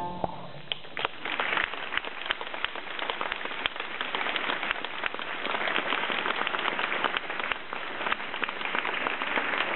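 Large audience applauding: a dense, steady patter of many hands clapping.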